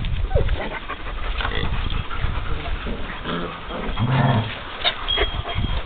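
Seven-week-old German Shepherd puppies play-fighting, with short growls and whimpers.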